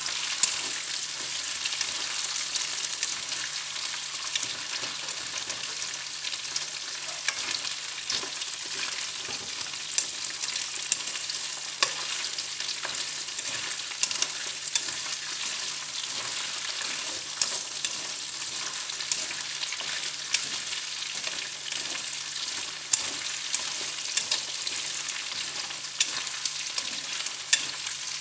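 Shrimp with lemongrass and ginger sizzling in oil in a pan, a steady hiss, with frequent clicks of chopsticks against the pan as the food is stirred.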